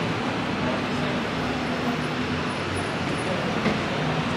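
Steady city traffic noise from passing road vehicles, with a low engine hum through the first half.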